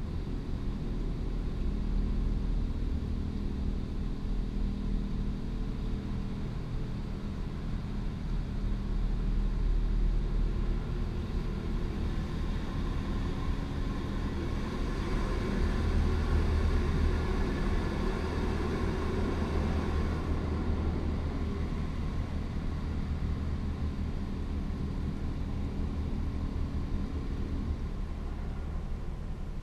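Automatic car wash machinery heard from inside the car: a steady low motor hum and rumble. From about 14 to 20 seconds in it grows louder with a rushing scrubbing noise as the rotating top brush passes over the roof.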